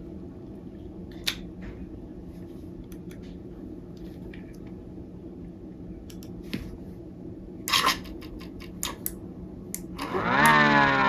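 Scattered light clicks and knocks over a faint steady hum, with a louder clatter about three-quarters of the way in; then, near the end, a 3D-printed 8/12-port air raid siren's DC-motor-driven chopper spins up and its wail rises steeply in pitch, with several tones stacked together.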